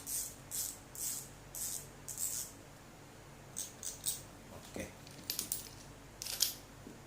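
Full-metal spinning reel being handled: light swishing strokes about twice a second, then a run of small metallic clicks and rattles from its parts.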